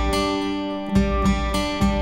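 Background music: strummed acoustic guitar chords with a steady rhythm, no voice.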